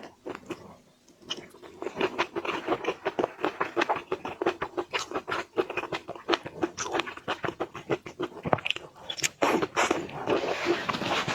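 Close-up crunching and crackling of shrimp shell: a dense run of small sharp cracks starting about a second and a half in and continuing nearly to the end.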